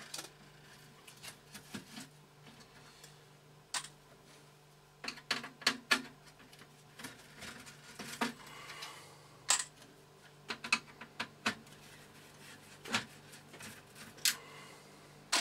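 Irregular clicks, taps and knocks of parts being handled and pulled out inside an opened desktop computer's plastic case, with a screwdriver in use. There is a quick cluster of clicks about five to six seconds in and single knocks after that.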